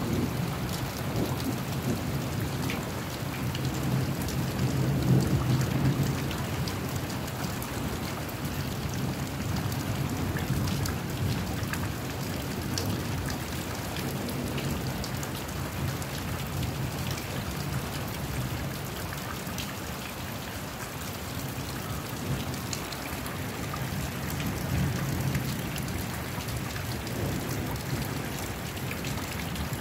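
Steady rain falling, with many individual drops striking, under a low thunder rumble that swells about five seconds in and again near the end.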